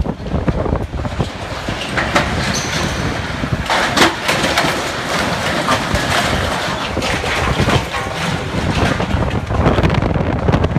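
Storm wind gusting at 50–60 mph and buffeting the microphone: a loud, continuous rush with many short cracks and clatters through it.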